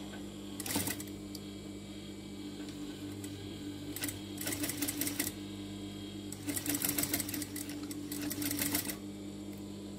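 Sewing machine stitching a plain seam through two layers of fabric in three runs: a short one about a second in, another around four seconds in, and a longer one from about six and a half to nine seconds. A steady motor hum sits underneath.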